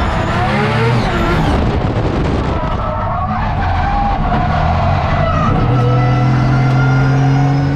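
Drift car's RB26 twin-turbo straight-six engine at high revs, pitch swinging up and down and held steady for a couple of seconds near the end, over the hiss of tyres sliding.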